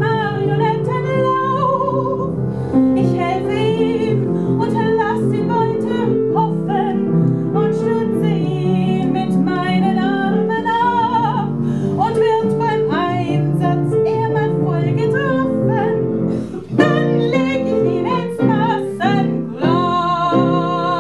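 A woman singing a German cabaret song with a man joining in, to piano accompaniment. The voice wavers with vibrato and closes on a long held note near the end.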